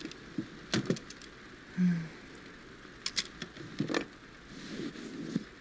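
A dresser drawer being opened and clothes handled: a few scattered knocks and rustles over a steady rain ambience.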